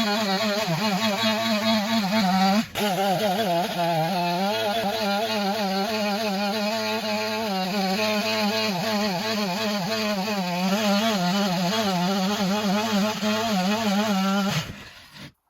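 Chainsaw running at high revs while ripping a log lengthwise in a chainsaw mill, its pitch wavering under the load of the cut. There is a short drop about three seconds in, and the saw cuts off suddenly near the end.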